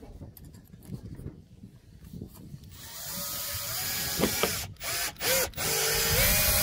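Bosch cordless drill/driver running in short starts and stops, its motor whine rising in pitch as it speeds up, then running steadily near the end.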